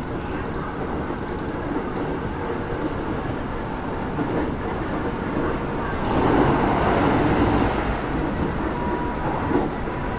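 Keisei 3700 series electric train running between stations, heard from inside the car just behind the cab: a steady rolling rumble that grows louder for a couple of seconds about six seconds in. A thin steady tone joins near the end.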